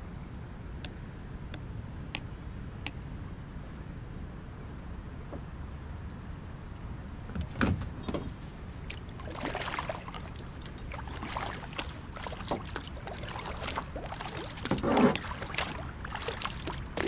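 Kayak paddle strokes: the blades dip and splash in the water again and again, starting about halfway through. Before that there is only a steady low rumble with a few faint ticks.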